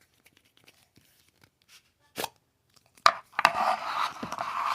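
Slime and its plastic packaging being handled: a few light clicks, a sharp click about two seconds in and another about a second later, then a stretch of dense crackling rustle near the end as the container is opened.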